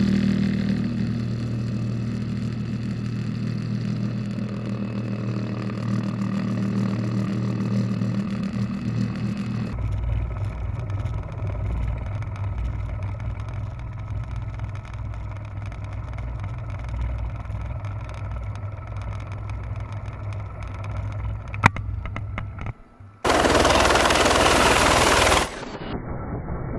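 Steady helicopter engine and rotor drone, then after a cut a lower steady rumble. Near the end come a sharp click and about two seconds of loud rushing noise, cut off suddenly.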